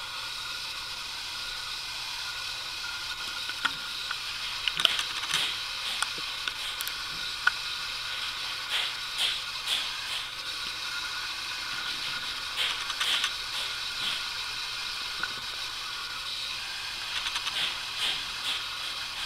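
Steady hiss with scattered short rustles and ticks that come in small clusters: a dark-eyed junco pecking and hopping in dry grass and crusty snow.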